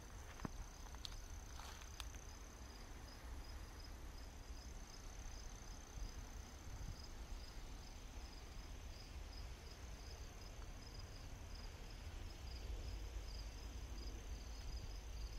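Crickets chirping in a regular pulse, about three chirps a second, over a steady high-pitched insect tone and a low rumble, with a few faint clicks near the start.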